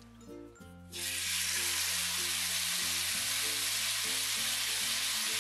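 Marinated chicken breast sizzling on a hot grill pan in olive oil: the sizzle starts suddenly about a second in, as the meat goes into the pan, and then holds steady. Light background music plays underneath.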